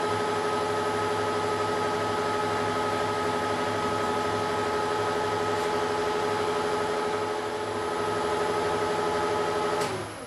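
Weiler Matador SV lathe running at 600 rpm with a steady multi-tone hum while a WNMG insert takes a light facing cut across a steel puck. Near the end there is a click and the lathe winds down, its hum sinking in pitch and fading as it stops.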